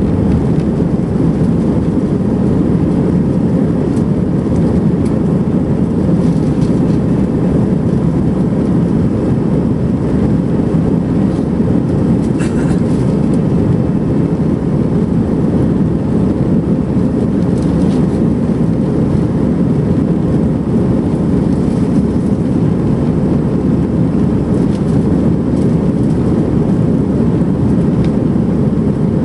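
Steady engine and airflow noise inside the passenger cabin of an Airbus A320-family airliner, a loud even roar with a few faint clicks.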